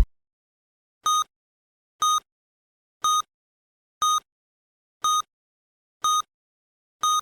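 Electronic countdown beeps: short identical high-pitched tones, one per second, seven in a row, ticking off the remaining seconds.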